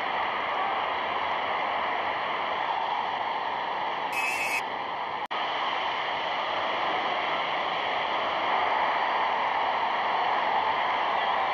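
Steady rushing noise on an old film soundtrack, with a brief dropout about five seconds in.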